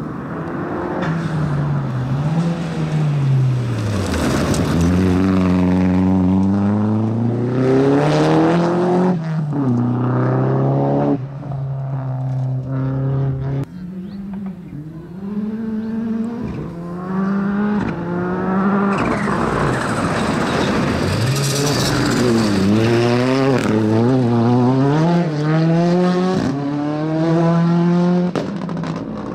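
Rally car engine driven hard on a dirt stage, its revs climbing and dropping over and over through gear changes, with brief lifts off the throttle.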